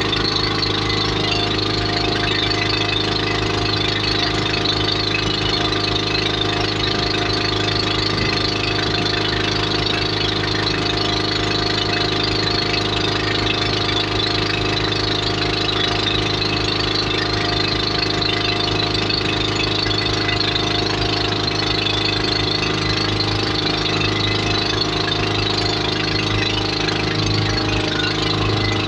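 Motorboat engine running steadily at a constant pitch and speed, with no revving or change in level.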